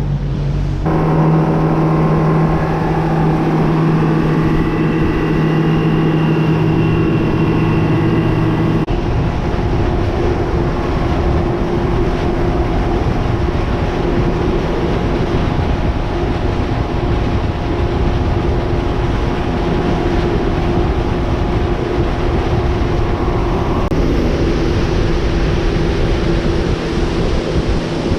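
A motorboat's engine runs steadily under way, with a rushing wash of wind and water. Its pitch shifts abruptly a few times.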